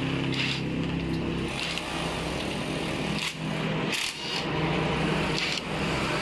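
Repair-shop tool noise: a steady low mechanical hum with about five short hissing bursts spread through.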